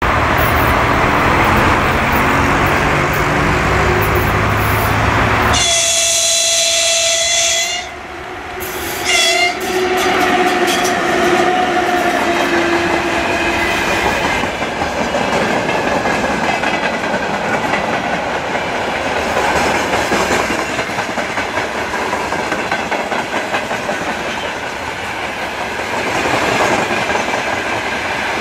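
Freight train hauled by a DE1 electric locomotive approaching and passing close by. A locomotive horn sounds about six seconds in, then a steady pitched tone fades away. The wagons follow, rolling past with a continuous clickety-clack of wheels over the rail joints.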